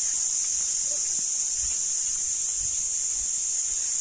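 Steady, high-pitched drone of an insect chorus, such as cicadas, running unbroken. Faint soft footfalls on leaf litter sound underneath.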